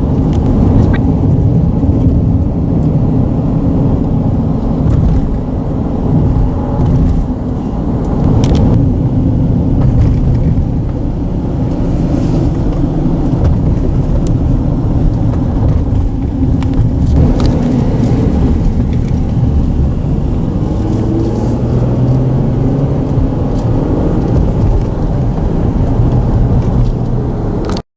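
Road traffic crossing a bridge, heard as a loud, steady low rumble from the vibrating bridge deck with faint engine hum over it. The sound cuts off abruptly near the end.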